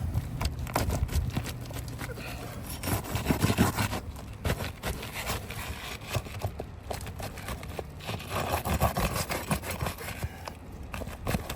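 Asphalt roof shingles being pried up and scraped as their nails are worked loose: irregular scraping, rubbing and small knocks.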